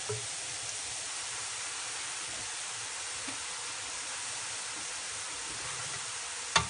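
Boondi, drops of gram-flour (besan) batter, sizzling steadily as they deep-fry in hot oil in a kadhai, with a brief knock near the end. The sizzle means they are still frying; it settles once they are fully fried.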